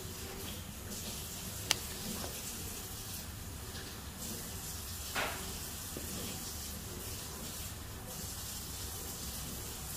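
Straight razor cutting wet hair held against a comb: a steady, soft scratchy hiss, with one sharp click a little under two seconds in and a short louder swish about five seconds in.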